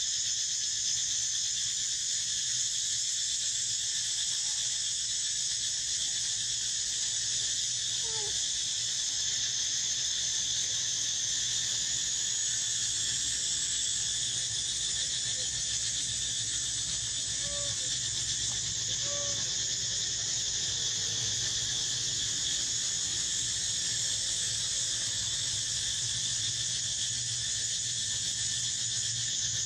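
Steady high-pitched insect chorus that holds level without a break. A few faint short squeaks rise over it, once about eight seconds in and twice a little past halfway.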